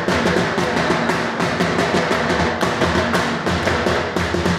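Dhol, a double-headed barrel drum, played with a fast, busy rhythm of deep bass strokes and sharp high slaps.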